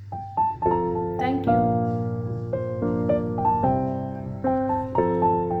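Background piano music playing a simple melody over chords.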